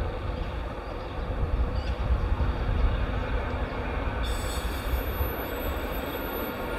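Class 91-propelled Mark 4 passenger train, led by its driving van trailer, running in along the track with a steady rumble. A high-pitched wheel squeal starts about four seconds in.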